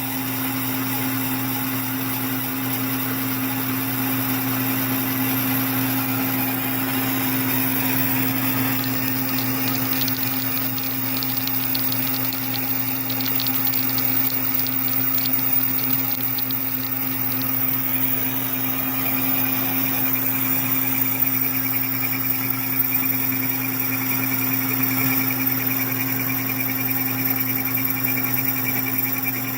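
Metal lathe running under power feed while a boring bar takes a heavy rough cut inside bushing stock: a steady motor hum under the noise of the cut, with a fast high rattle of chatter for several seconds partway through. The chatter comes from the cut being heavy.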